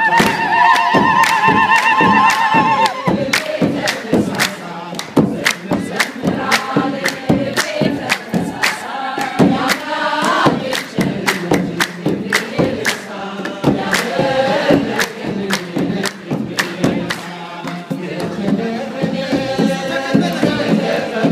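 Kebero drums beaten at a steady beat with hand clapping, under a congregation singing a chant together. A high, rapidly warbling ululation rises over the singing for the first three seconds or so.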